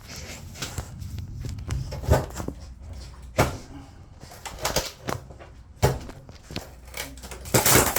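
Irregular knocks, bangs and creaks of demolition work on an old houseboat, about half a dozen sharp hits with the loudest near the end, over a low steady rumble.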